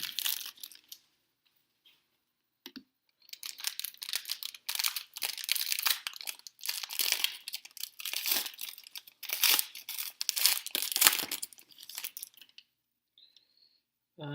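Trading card pack wrapper being torn open and crinkled, a run of crackling rustles that starts about three seconds in and stops shortly before the end.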